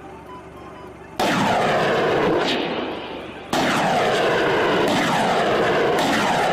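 Pickup-mounted multiple rocket launcher firing salvos. A sudden loud rushing roar of rockets leaving the tubes starts about a second in and fades, then a second sustained salvo starts about three and a half seconds in.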